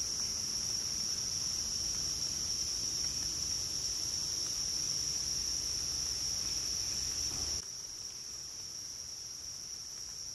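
Steady, high-pitched late-summer insect chorus from the woods, one unbroken trill. The lower background noise drops away about three-quarters of the way through, while the chorus carries on a little quieter.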